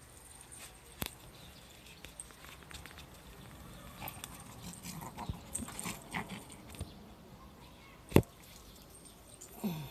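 A pet dog moving about on a walk: faint rustling and scuffing, with a sharp click about a second in and a louder one about eight seconds in, and a short low falling sound near the end.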